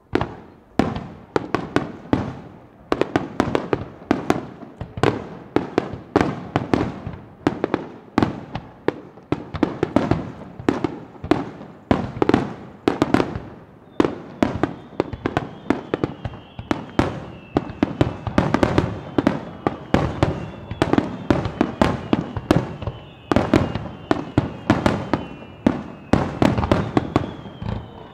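Fireworks display: aerial shells bursting in a rapid, unbroken barrage, several bangs a second.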